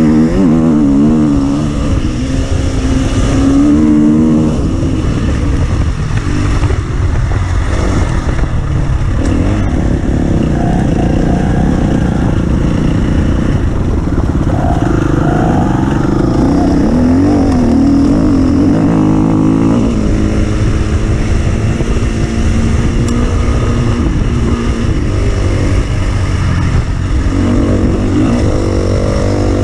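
Offroad vehicle engine running hard, its pitch rising and falling over and over as the throttle is opened and eased, over a heavy rumble.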